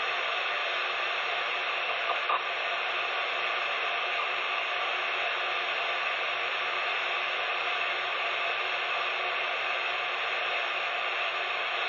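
CB radio receiver hissing with steady static on a channel where no one is transmitting. A couple of faint clicks come about two seconds in.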